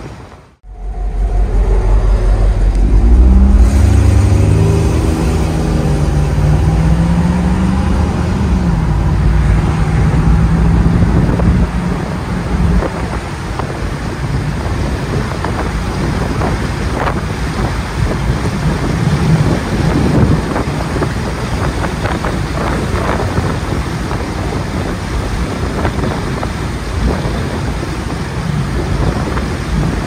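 1965 Pontiac Bonneville's V8 engine accelerating, its pitch rising over a couple of seconds, then cruising at a steady pitch, heard from inside the car. From about twelve seconds in, road and wind noise grows over the engine.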